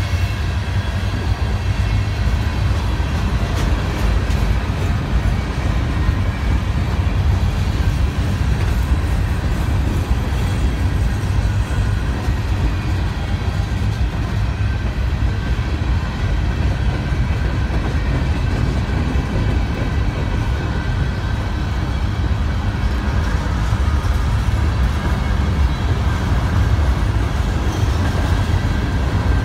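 Freight train cars rolling past close by, covered hoppers and then boxcars, their steel wheels on the rails making a steady low rumble.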